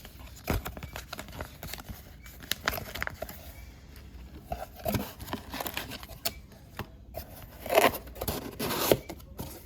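Mail packaging being torn open and handled: irregular tearing, crinkling and rustling with scattered sharp clicks and knocks. The busiest, loudest rustling comes about three-quarters of the way through.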